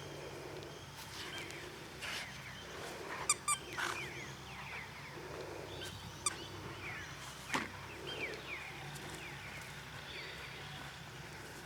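Wild birds calling, with many short falling chirps throughout, broken by a quick rattle of sharp clicks a little after three seconds and a few single clicks.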